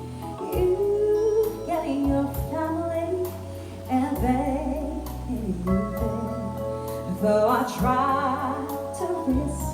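A song playing: a sung vocal melody over a steady bass accompaniment.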